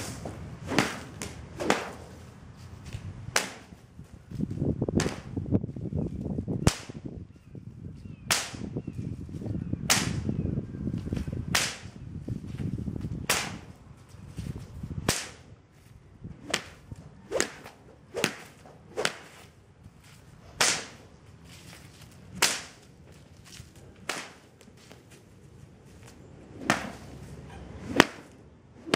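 Sharp cracks, about one a second and irregularly spaced, some louder than others, with a low rumble under them for the first half.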